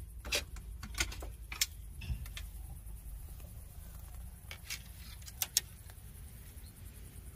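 A scattering of short, sharp clicks and taps, about seven in all, from fishing rods and spinning reels being handled and lifted out of a car's rear cargo area, over a steady low rumble.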